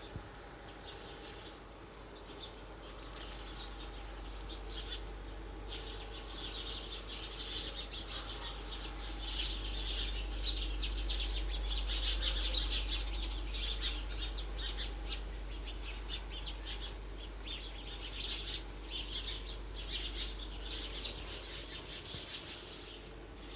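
Birds chirping in a rapid, continuous chatter of short high notes, growing louder toward the middle and easing off near the end, over a low steady hum.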